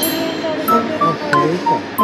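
Background music: a light instrumental tune.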